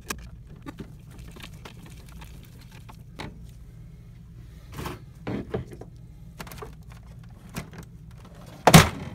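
Light plastic clicks and taps from hands and a screwdriver working on an HP OfficeJet 7612 inkjet printer's printhead carriage, with one louder thunk near the end as a printer cover is shut.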